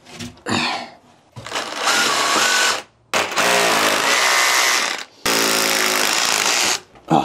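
Circular saw cutting fibre-cement backer board in repeated bursts of a second or two, stopping and starting again between them.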